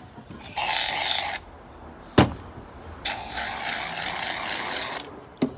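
Aerosol shaving cream can dispensing foam into a metal bucket: two hissing bursts, a short one under a second in and a longer one of about two seconds past the middle, with a single knock between them.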